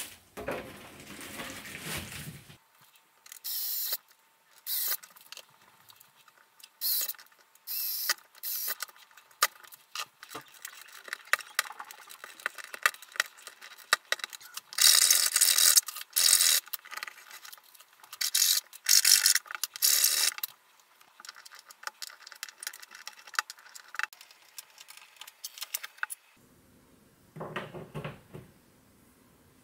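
A hobby knife and file cutting a rectangular hole in a plastic enclosure panel: many short, irregular scraping strokes, longer and closer together about halfway through. It opens with plastic sheeting rustling, and near the end there is a brief knock as a metal USB connector is fitted into the hole.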